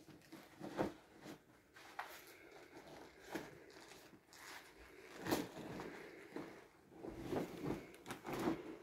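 Vinyl inflatable pool toy being crumpled and handled: irregular rustling and rubbing of plastic, with sharper strokes about a second in, a louder one past the middle, and a cluster near the end.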